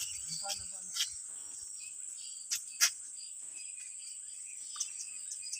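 Steady high-pitched insect drone, with a few brief clicks over it.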